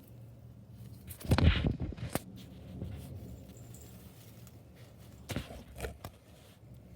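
A house cat sneezing, with one sharp sneeze about a second and a half in that is the loudest sound, and a few fainter short bursts later on.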